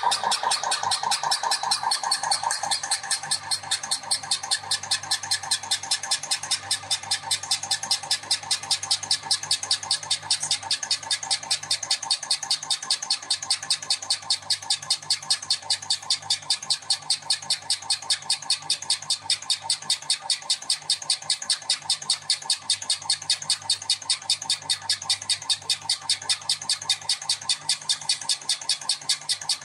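Cummins PT injector flow test bench running an automatic test: a steady motor hum with even ticking, about three to four a second, as the injector under test is cycled. A higher whine fades out in the first few seconds.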